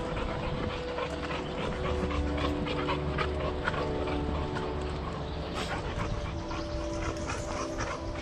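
Dog panting while trotting along a dirt trail, with footsteps and rustling in the undergrowth. Underneath are soft held notes of background music that change pitch every few seconds.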